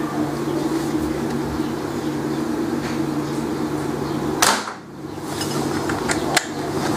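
Homemade airsoft gun firing once, a sharp snap about four and a half seconds in, then a shorter click about two seconds later, over a steady mechanical hum.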